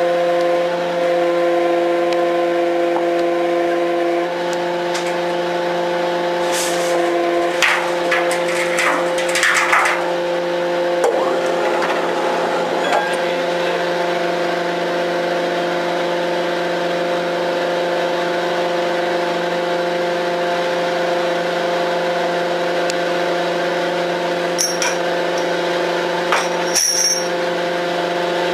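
A roadheader (tunnelling machine) running with a steady mechanical hum of several fixed tones, its pitch shifting slightly about four seconds in. Scraping and knocking noises come for a few seconds about seven seconds in, and a few sharp metallic clicks come near the end.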